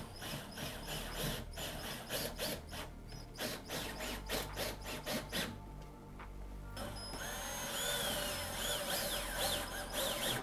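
Cordless drill driving screws into the floor of a car boot to fasten an amplifier down, in short, rattling bursts over the first five seconds or so. Background music takes over for the rest.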